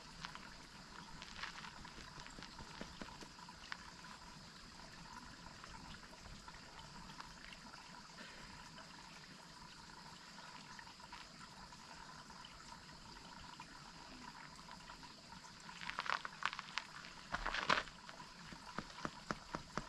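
Waterfall water running steadily, with scattered crackles from a campfire and two short bursts of rapid crackling near the end.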